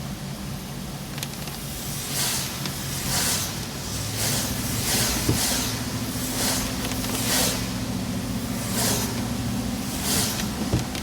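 Inside a truck cab driving in rain: steady engine and road hum, with windshield wipers swishing across wet glass about once a second.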